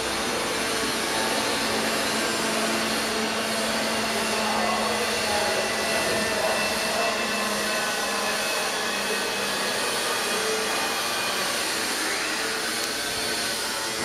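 Industrial central vacuum system running: a steady rushing of air with a faint steady hum underneath.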